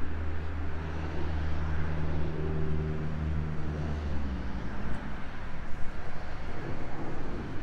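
Low engine hum of a nearby motor vehicle, steady at first, then dropping slightly in pitch and fading out a little over four seconds in, over faint outdoor background noise.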